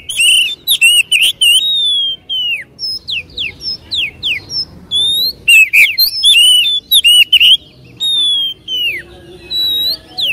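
Oriental magpie-robin singing a loud, varied song of whistled notes. It opens with a rapid burst of quick chattering notes, gives single falling whistles, has another rapid burst about halfway, and ends with a long held whistle and more falling notes.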